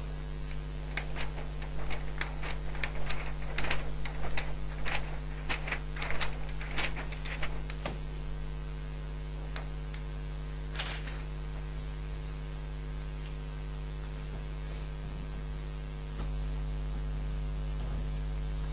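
Experimental keyboard improvisation made of a steady electrical hum, with a scatter of short clicks and taps over roughly the first eight seconds and one more near the middle. After that only the hum remains, and its deepest part grows louder near the end.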